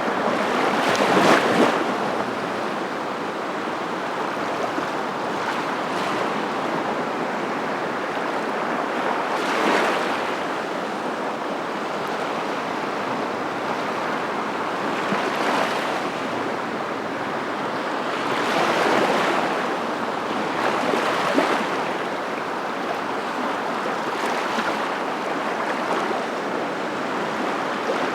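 Sea waves washing in: a continuous rushing noise that swells every few seconds as waves break.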